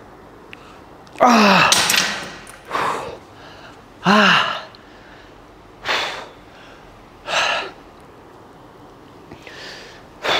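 A man breathing hard from exertion just after a final set of cable curls: heavy, noisy exhales about every one and a half seconds, the first and third voiced as falling groans.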